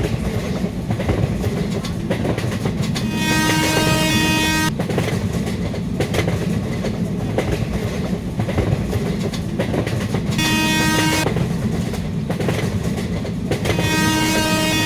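Passenger train running at speed, with a steady rumble and wheel clicks over the rail joints. The locomotive's horn sounds three times: a blast of about a second and a half some three seconds in, a short one about ten seconds in, and a long one starting near the end.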